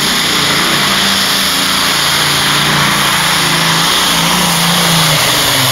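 Loud pulling-tractor engine running hard, a dense roar whose pitch wavers and then drops near the end as the engine eases off.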